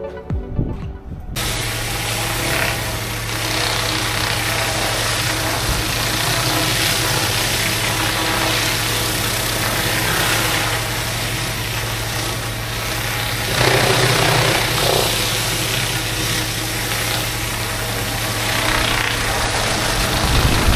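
Pressure washer running steadily: the high-pressure water spray hisses over a constant engine hum, growing louder for a stretch a little past the middle. Music with a beat fades out about a second in.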